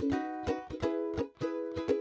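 Instrumental music of short plucked-string notes in a quick, steady rhythm.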